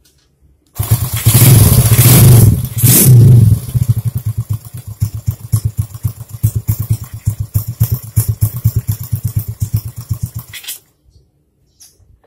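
Honda C70 Cub's 122cc single-cylinder four-stroke engine, with a racing camshaft fitted, starting about a second in and revved twice, then idling with an uneven pulsing beat before cutting off suddenly near the end. The carburettor's air screw is set at 1.5 turns to suit a larger pilot jet, as a tuning test.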